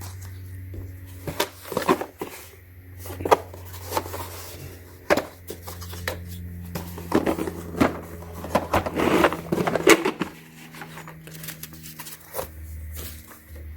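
Tap and die set being handled in its plastic carry case: irregular clicks, knocks and light rattles of plastic and steel tools.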